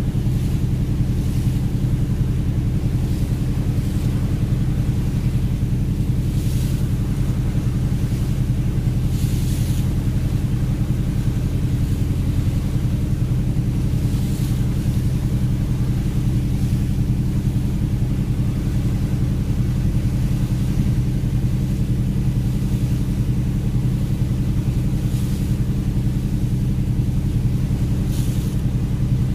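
A fishing vessel's engine running steadily under way: an even, deep drone with no change in speed, with a few faint swishes of higher noise over it.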